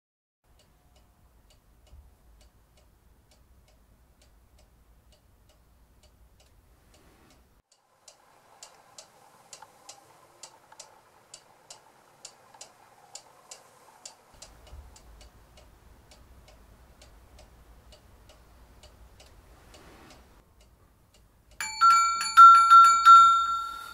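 A clock ticking faintly, about two to three ticks a second, for several seconds. Near the end a hanging set of small metal bells is rung several times, loud with a clear lingering ring.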